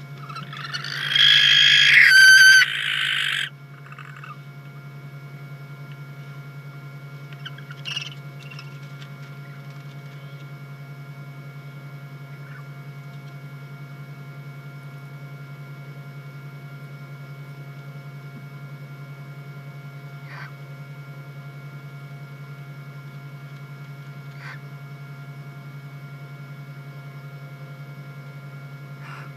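Barn owl giving one harsh, hissing screech about a second in, lasting roughly two and a half seconds. After it, only a steady low electrical hum from the nest camera's microphone remains, with a few faint clicks.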